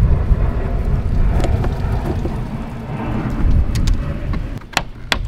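Low rumble of wind on the microphone while the plastic engine air-filter box lid is pressed down over a new filter, then two sharp clicks near the end as the lid's spring clips snap shut.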